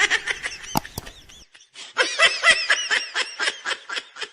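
High-pitched laughter: a quick run of short rising-and-falling laughing pulses, about five or six a second, trailing off near the end.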